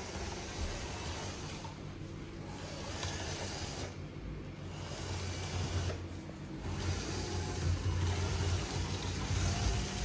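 Dyson 360 Vis Nav robot vacuum running as it drives over a tiled floor: a steady motor whirr with a low hum, its hiss dropping away briefly a few times.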